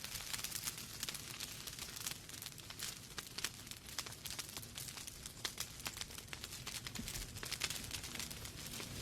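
Wood fire burning in a fireplace, with a steady soft hiss and irregular sharp crackles and pops.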